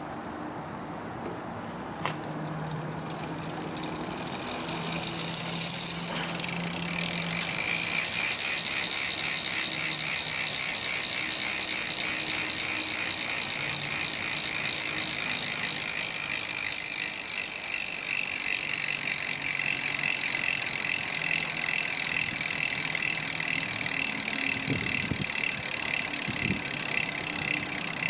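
DT Swiss 350 rear hub freewheeling on its stock 18-tooth star ratchet: a fast, steady clicking buzz as the wheel spins freely. The ratchet rings coming onto each tooth make the clicking. A single sharp click comes about two seconds in, and the buzz grows louder from about four seconds in.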